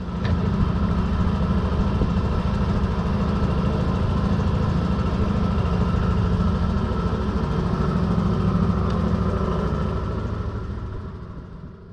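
Boat motor running steadily, fading out near the end.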